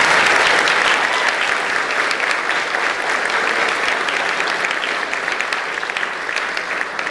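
Audience applauding, a dense patter of clapping that is loudest at the start and slowly dies down.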